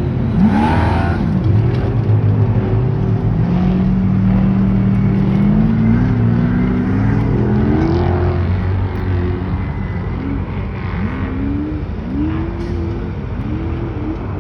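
Off-road race trucks' engines revving hard as they run the course, the pitch rising and falling again and again. A long, slowly climbing engine note runs through the middle, and shorter rapid rises and drops come near the end, as throttle is blipped over bumps.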